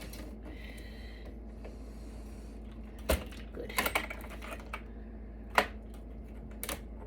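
Scattered sharp clicks and clacks of server parts being handled and unclipped during disassembly. The loudest click comes about five and a half seconds in.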